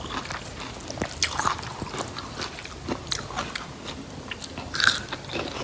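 A person chewing raw rattan shoot: irregular crunches and mouth clicks, with one slightly louder crunch near the end.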